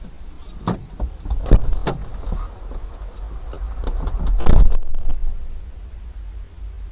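Vehicle interior road rumble, low and steady, with a few sharp knocks in the first two seconds and a rush of noise that swells to its loudest about four and a half seconds in, then fades.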